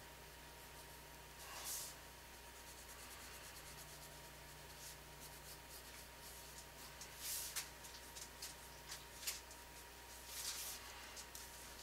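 Faint scratching of a drawing pen on paper in short strokes: one about two seconds in, then a run of quick strokes in the second half.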